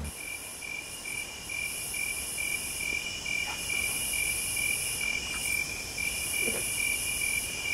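Crickets chirping in an even, rapid pulse with a high shimmering hiss swelling on and off. It starts abruptly as the speech stops, the typical 'crickets' sound effect marking an awkward silence.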